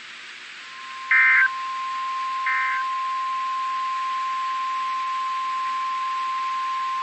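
Emergency alert broadcast: the steady 1050 Hz NOAA Weather Radio warning alarm tone starts about half a second in and holds on one pitch. Two short, louder warbling SAME digital data bursts sound over it about a second and two and a half seconds in.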